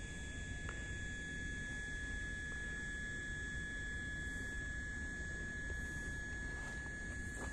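Steady background hum: a constant low rumble under a thin, unchanging high-pitched whine.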